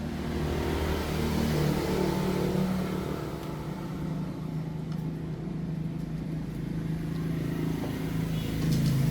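A motor or engine running steadily with a low droning hum that shifts a little in pitch and gets louder near the end.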